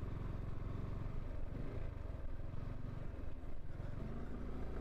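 Motorcycle engine running steadily while riding on the highway, heard through a headphone mic inside the helmet, with only light wind noise.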